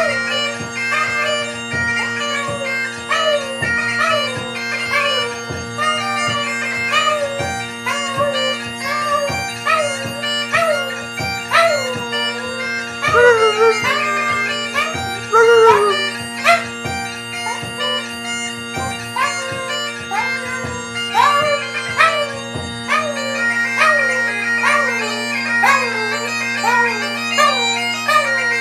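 Bagpipes playing a tune over their steady drones, with drum beats that stop about two-thirds of the way through. A dog howls along with the pipes in wavering, sliding tones about halfway through.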